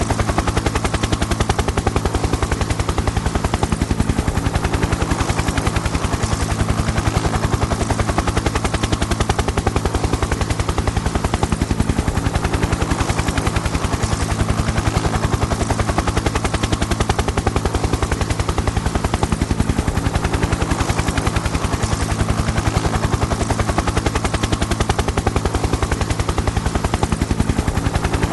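Helicopter flying, its rotor blades making a fast, even chop over the steady drone of the engine, with no change in level.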